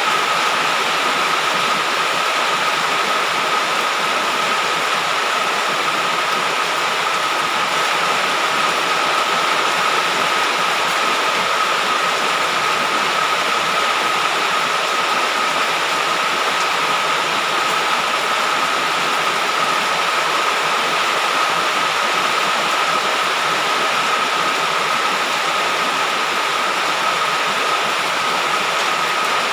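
Heavy rain falling as a steady, even downpour, with a thin steady high tone running through it.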